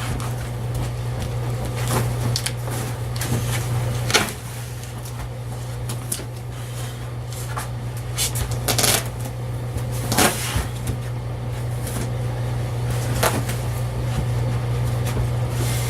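Scattered knocks, clunks and scrapes of old flooring being pulled up in the motorhome to check the floor beneath for damage, over a steady low hum.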